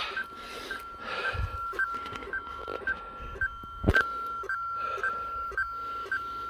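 A crashed Parrot Disco drone's alarm pulsing: a steady high beep broken briefly about twice a second, a sign that the drone is still powered. Rustling from handling the wreck, and a sharp knock about four seconds in.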